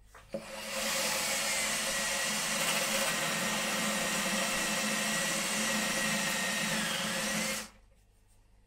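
Cordless drill-driver spinning a 10 mm spade bit, boring a hole through a laminated chipboard cabinet door. The motor spins up over the first second, runs at steady high speed with a constant whine, then stops abruptly about a second before the end.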